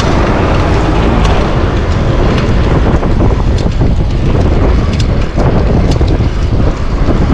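Heavy wind buffeting a GoPro microphone on a bicycle speeding downhill, a steady loud rumbling rush with a few light ticks.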